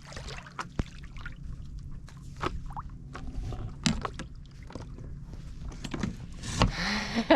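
Water sloshing and splashing with scattered knocks around a small boat or paddleboard in the shallows, and a louder splash about six and a half seconds in.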